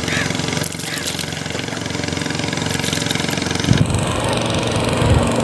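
Small boat's outboard motor running steadily at low speed. About three and a half seconds in, the sound changes abruptly and grows louder and lower, with a few low thuds.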